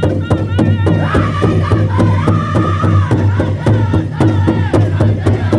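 Powwow drum group singing in high, wavering unison over a fast, even beat struck together on one large shared drum: a fancy dance song.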